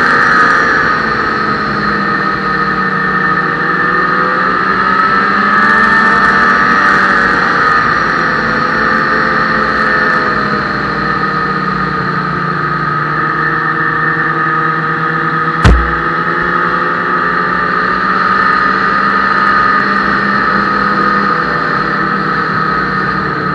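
Ski-Doo snowmobile engine and drive running steadily while riding, with the pitch rising and falling a little with the throttle. One sharp knock about two-thirds of the way through.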